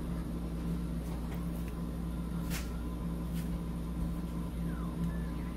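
Steady low hum of a running kitchen appliance motor, with a couple of faint light clicks.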